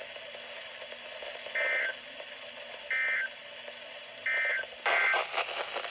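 Three short warbling data bursts, about 1.4 s apart, each switching between two high tones: the Emergency Alert System end-of-message code sent over weather radio after a warning. Near the end a louder crackle of radio noise cuts in.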